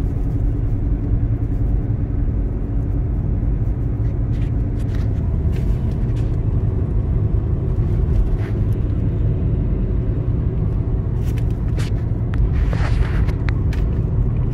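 Steady low road and engine rumble inside the cabin of a moving car, with a few faint clicks.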